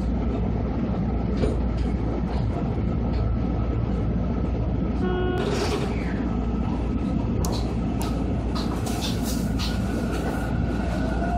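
Cab sound of a Seibu Ikebukuro Line electric train pulling out: a steady low rumble with a brief electronic chime about five seconds in, then several clicks and knocks, and near the end a rising whine as the traction motors start the train moving.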